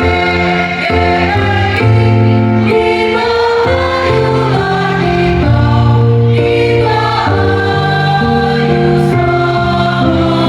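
A choir singing in several parts, holding chords that move together from note to note every half second to a second.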